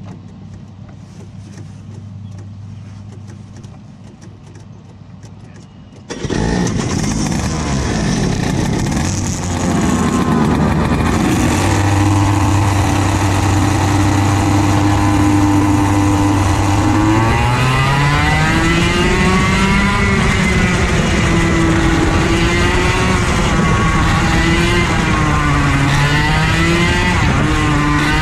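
A racing kart's small single-cylinder engine starts up suddenly about six seconds in and runs at a steady note. From a little past halfway its revs climb and then rise and fall repeatedly as the kart pulls away.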